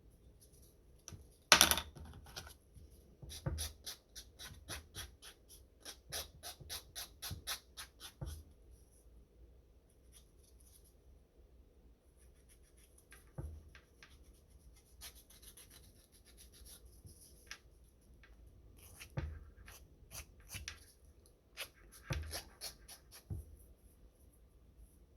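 Short scraping and rubbing strokes from hands working on fingernails close to the microphone, with a sharp knock about a second and a half in and a quick run of strokes, about three a second, between roughly three and eight seconds in.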